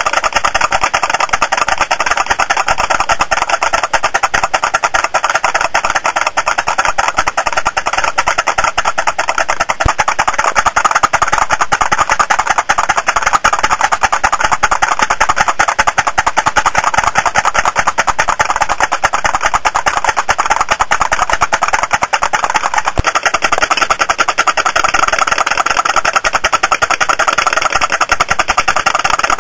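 Model putt-putt (pop-pop) boat's steam engines popping continuously in a fast, even rattle of ticks.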